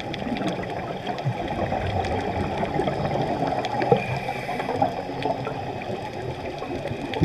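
Underwater ambient noise: a steady watery rush with a few faint clicks scattered through it, heard through the water.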